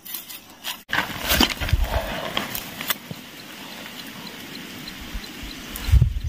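Hands handling a bamboo stick and dry leaf litter while setting a bird snare in the ground: rustling and small clicks and snaps, with a low thump near the end.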